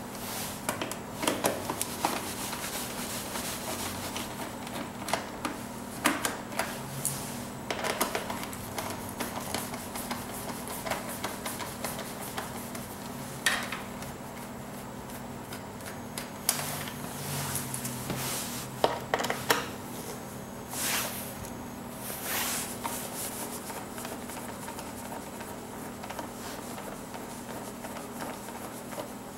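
Scattered light clicks, taps and small rattles of a T25 Torx hand screwdriver turning screws out of a BMW R1200GS's plastic side panel, and the screws being handled. A steady low hum runs underneath.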